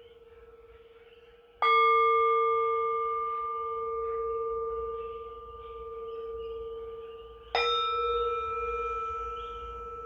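Singing bowls struck twice, about a second and a half in and again near the end, each strike ringing on as a steady low tone with higher overtones whose loudness slowly swells and fades.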